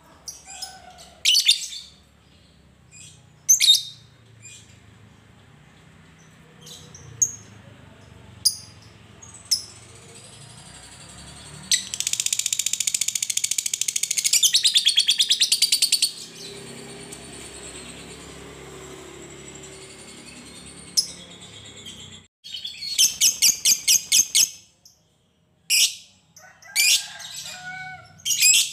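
Fischer's lovebird calling: scattered sharp, high single chirps, and midway a long rapid chattering trill of about four seconds, the call that keepers call "ngekek". A shorter rapid burst follows later, and then more chirps.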